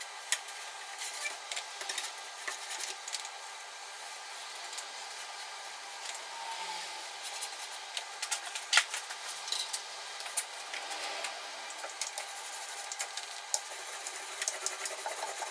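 Paintbrush scrubbing a finishing coat onto the painted back and base of a wooden cupboard: a steady rubbing of bristles on board, with scattered light clicks and taps.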